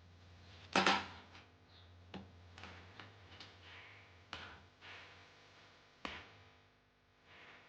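Scattered clicks and knocks of tools and metal parts being handled while a washing machine part is taken apart for its metals, the loudest knock about a second in, over a low steady hum.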